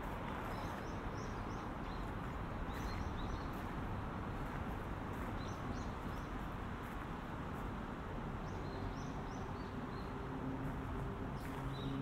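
Small birds chirping in short, high clusters every few seconds over a steady hum of city background noise. A faint low drone comes in near the end.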